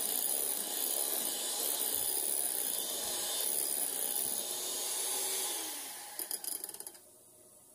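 Electric hand mixer running, its beaters whirring through thick cake batter in a glass bowl. The noise is steady, then fades and stops about six to seven seconds in.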